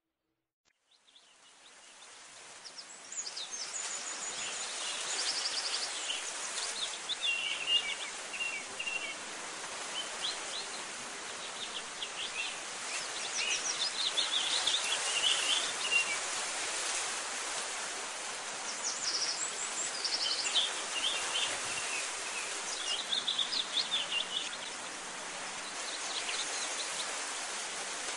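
Outdoor nature ambience: small birds chirping and twittering in scattered bursts over a steady hiss. It fades in from silence over the first few seconds.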